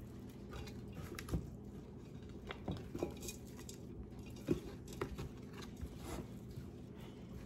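Cooked chicken and turkey carcass bones being pushed by hand into a stainless steel Instant Pot inner pot: faint, scattered clicks and knocks of bone against bone and steel.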